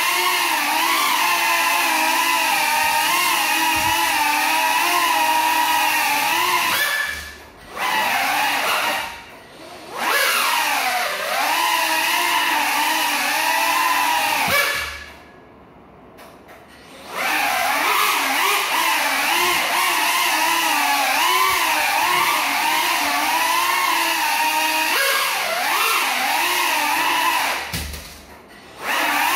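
Small FPV quadcopter flying on broken propellers: the whine of its motors rises and falls in pitch with the throttle. It cuts out briefly four times, longest for about two seconds halfway through.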